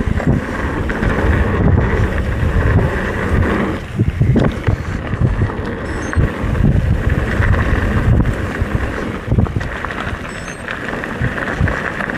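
Wind buffeting the microphone over the rumble and rattle of a mountain bike rolling along a dirt trail, uneven and continuous with small knocks throughout.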